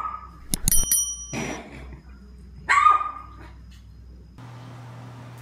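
Small puppy yapping: two short, high barks that drop in pitch, a few seconds apart, with sharp clicks and a brief metallic ring between them.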